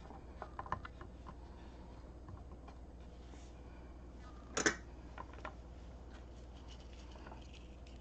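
Faint clicks of a coaxial cable being set into a gooseneck alligator-clip holder near the start. One sharper knock comes about halfway through, and otherwise only a low steady background hum is heard.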